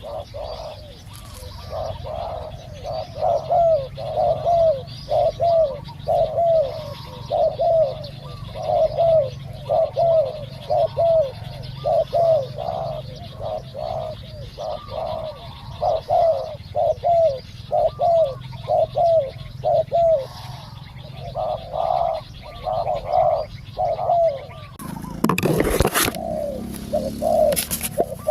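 Spotted doves cooing over and over in short repeated phrases. About 25 seconds in a brief loud rustle cuts across the calls.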